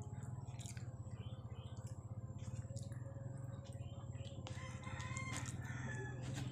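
Rooster crowing: one long held call, then a shorter one about five seconds in, over a steady low hum. Small clicks of close chewing come and go.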